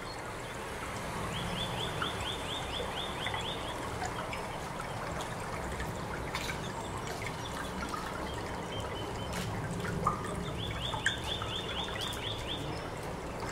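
Experimental stage soundscape: two runs of about ten quick, high chirps, each slightly falling, with a few sharp clicks between them, over a steady hiss and low hum.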